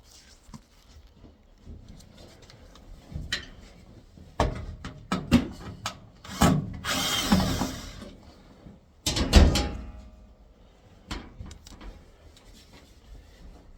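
Handling and tool noise while a front-load washer's cabinet is taken apart: scattered knocks and clicks, a scraping rub about seven seconds in, and a heavy thump about nine seconds in.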